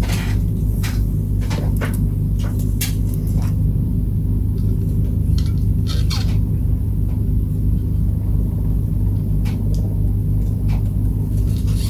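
A steady, loud low machine hum, with scattered light clicks and clinks of small parts being handled.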